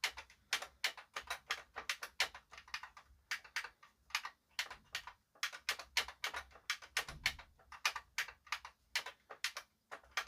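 Front-panel push buttons of a JVC RX-320V stereo receiver being pressed one after another, a rapid, uneven series of sharp plastic clicks, about three or four a second. This is a function test of the controls after their contacts were cleaned.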